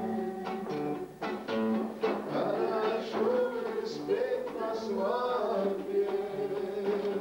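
A song sung to a strummed guitar accompaniment in waltz time.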